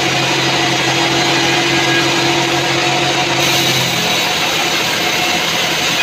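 Band sawmill running and sawing a mahogany log: a loud, steady machine hum with the hiss of the blade in the wood. The hum changes pitch about three and a half seconds in.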